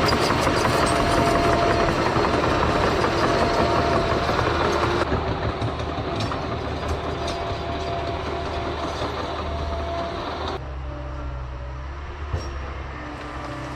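John Deere 650K crawler dozer working: a steady diesel engine with clanking tracks. The sound changes abruptly twice, and for the last few seconds it is quieter, with a lower, steady engine note.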